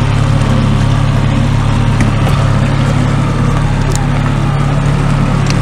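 Boat's outboard motor running steadily: a constant low engine hum with no change in speed.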